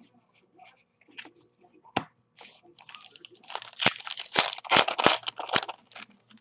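A trading card pack's wrapper being torn open and crinkled, a dense crackling that runs from about halfway through to near the end, after a few light handling clicks.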